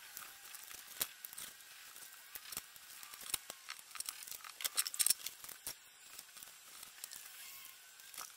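Paper and card being handled at close range: small irregular rustles, crackles and clicks, with a denser, louder flurry about five seconds in.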